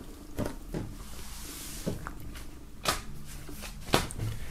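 Handling noise: a few scattered light knocks and rustles as things are moved about on a wooden table, the clearest knock about three seconds in.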